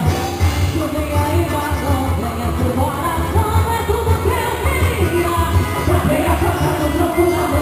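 Loud quadrilha junina forró music with a sung vocal over a steady, pulsing bass beat.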